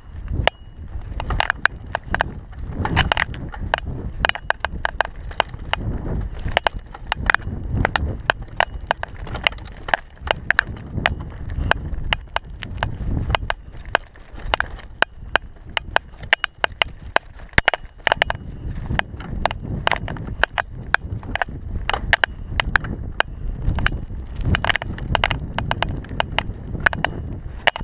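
Mountain bike ridden fast down a rough dirt forest trail: a steady low rumble of tyres on dirt, with constant sharp rattles and knocks as the bike goes over roots and stones.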